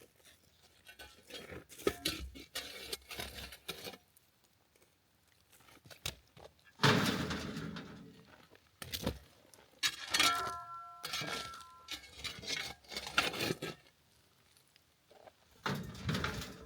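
Irregular metallic clinking, rattling and scraping, with a short ringing tone from struck metal a little past the middle.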